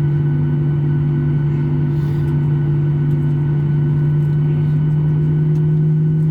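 Steady low drone of a Boeing 737-800's CFM56-7B engines and airflow, heard inside the cabin, with a constant deep hum throughout.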